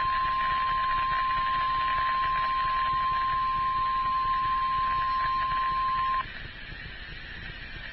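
NOAA Weather Radio 1050 Hz warning alert tone: a single steady high-pitched beep over radio static, which cuts off suddenly about six seconds in and leaves only the static. The tone signals that a severe weather warning is about to be broadcast.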